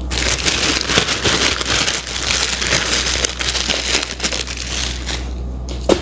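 Dried herbs being handled, a dense crinkling and crushing noise that stops about five seconds in.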